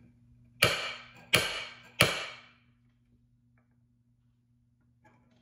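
Center punch marking hole centres on a metal grille trim strip: three sharp metallic cracks about two-thirds of a second apart, each with a short ring from the strip.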